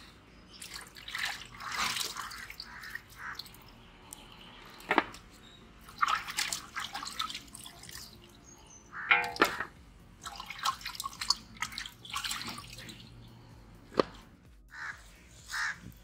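Raw whole chickens being washed by hand in a steel pot: irregular water splashing and dripping, with a few sharp knocks against the metal pot and plate.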